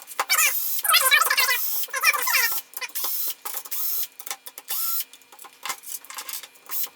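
A small power screwdriver or cordless drill/driver runs in short bursts, backing screws out of a plastic tool housing. Between the bursts there are clicks and handling knocks, and twice a screw squeaks as it turns.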